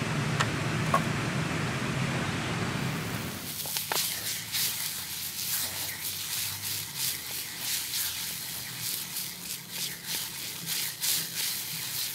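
A steady rushing noise gives way, about three seconds in, to steak frying in a nonstick pan over a portable gas stove: a sizzle with frequent irregular pops and crackles of spitting fat.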